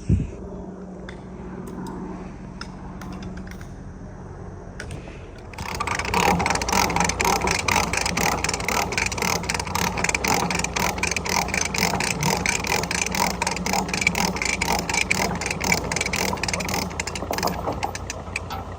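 A low steady hum, then about five seconds in a loud, fast mechanical clatter of gears and ratcheting clicks starts and runs on, easing slightly near the end.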